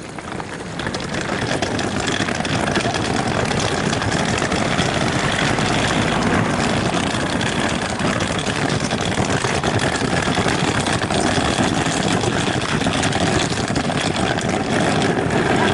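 Steady vehicle engine noise that builds up over the first two seconds, then holds level.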